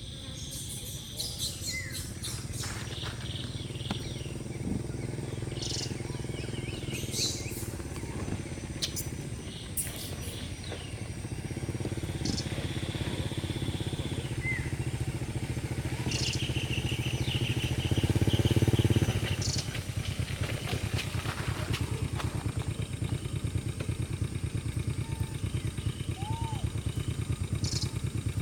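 A low engine drone that grows louder, peaks about two-thirds through, then settles into a fast, even pulsing, with scattered short high chirps above it.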